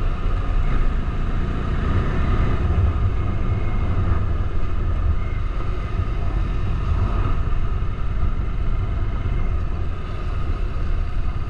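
Bajaj Dominar 400's single-cylinder engine running steadily while riding, under a heavy, steady rumble of wind on the microphone.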